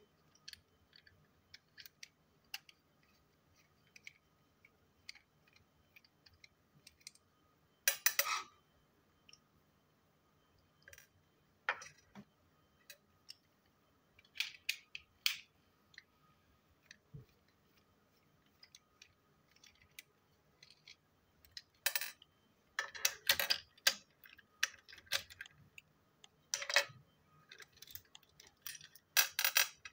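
Small hard plastic parts of a battery-powered toy train clicking and clattering as they are handled and pulled apart, with pieces and tiny screws set down on a hard table now and then. Scattered single clicks, with a few louder bursts of clatter about eight seconds in, in the middle of the second half, and near the end.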